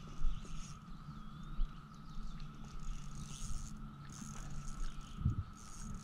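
Chorus of Brood X periodical cicadas: a steady, even drone from the shoreline trees. Under it runs a low hum, with a few knocks and rumbling handling sounds, the loudest near the end.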